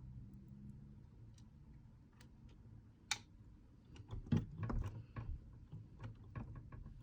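Small clicks and taps from handling the parts of a Brother sewing machine and the oiler while oiling it: one sharp click about three seconds in, then a run of clicks and knocks for a couple of seconds, over a faint low hum.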